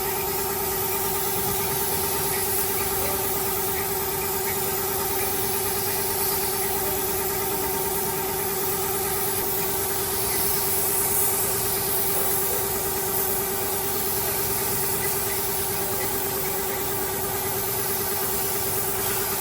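Car engine idling steadily, an even hum with no revving.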